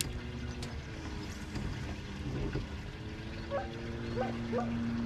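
Bow-mounted electric trolling motor running on spot-lock: a steady whine whose pitch steps up and down as the motor adjusts thrust to hold the boat in place. From about halfway in, a few short rising animal calls.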